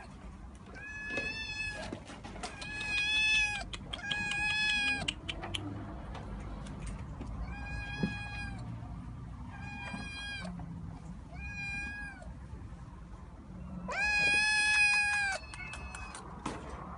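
Domestic cat meowing repeatedly: seven high, steady meows in a loose series, the last near the end the longest and loudest.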